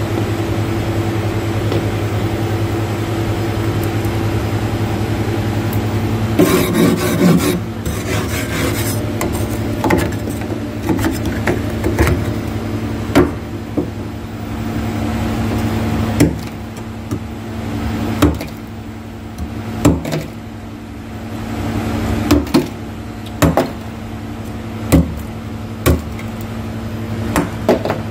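Freezer frost being scraped: a dense rasping scrape about six seconds in, then a string of short, sharp crunchy scrapes every second or two, over a steady low hum.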